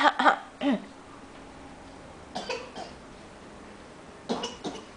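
A toddler coughing: several short coughs in spells a couple of seconds apart.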